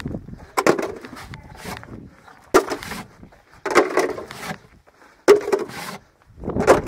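A few sharp knocks and clatters, irregularly spaced a second or more apart, some trailing off in a short rattle.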